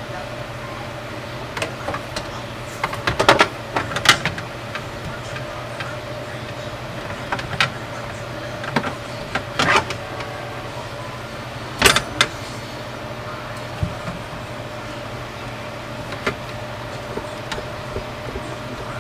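Handling noises under a sink: scattered clicks and knocks of a plastic drain hose and a saddle drain clamp being worked by hand on a PVC drain pipe, the loudest about three seconds in and again a little past the middle, over a steady low hum.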